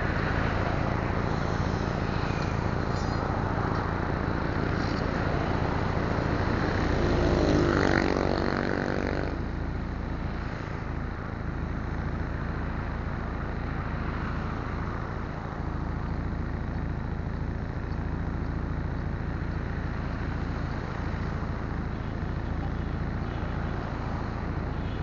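Steady roadside traffic noise over a low, even engine hum, with one vehicle passing close by and swelling loudest about eight seconds in before fading.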